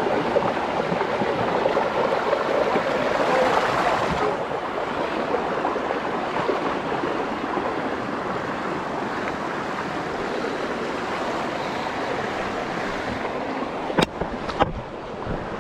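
Rushing river water, a steady wash that is a little louder in the first few seconds. Two sharp knocks come near the end.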